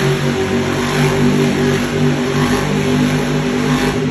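Monster truck's engine running loud and revving up and down as the truck drives, dropping away right at the end.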